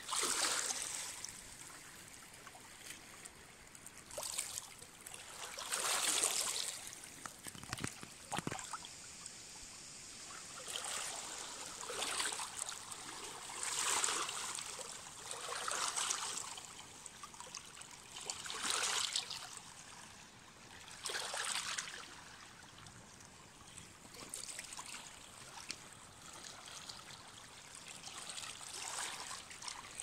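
Small waves lapping and washing over stones at a lake's edge, in swells that rise and fall every couple of seconds.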